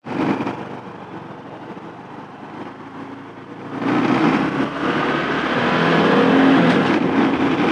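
Honda CT125 Hunter Cub's single-cylinder engine. It is fairly quiet for the first four seconds, then gets much louder and rises in pitch as the bike accelerates, with wind rushing over the microphone.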